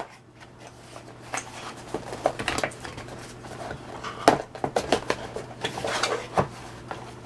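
Cardboard product box being opened and its packaging handled: irregular scraping and rustling with a few sharp clicks, the loudest about four seconds in.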